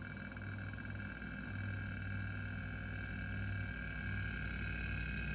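New LG linear refrigerator compressor running on the bench, pumping air through its open, unsealed lines: a loud, steady hum with a high whine over it. It is loud because it is not yet connected into a sealed system.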